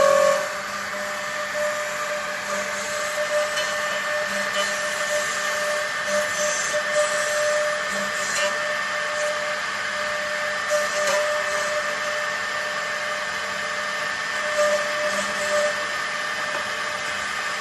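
HC4120D CNC door lock and hinge-slot machine running, its high-speed router spindle giving a steady whine over a rushing noise, with small surges now and then. It is loudest right at the start.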